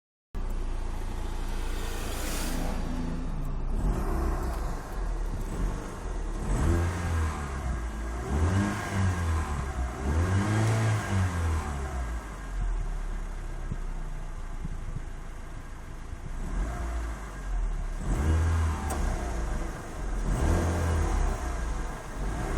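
2005 Proton Savvy's 1.2-litre four-cylinder petrol engine revved in several short blips that rise and fall in pitch, settling back between them. It is making a strange noise that the owner cannot identify, after 157,000 km.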